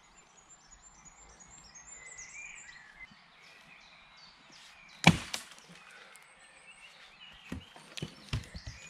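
An axe strikes wood once with a loud, sharp chop about five seconds in, followed by a few lighter knocks near the end. Birds chirp faintly during the first few seconds.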